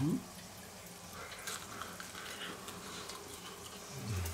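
Batter fritters frying in the hot oil of an electric deep fryer: a steady, low-level sizzle with a faint steady hum underneath.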